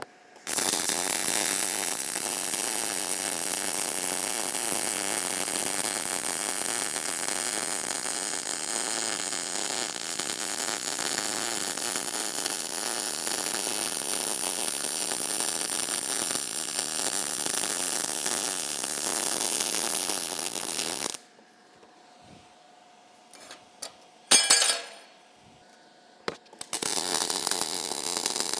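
MIG welding arc on 10-gauge plate, set to 19 volts and 232 inches per minute of wire: the steady crackling sizzle of short-circuit transfer for about twenty seconds, then it stops. After a few seconds with only a couple of short bursts, the arc starts again near the end.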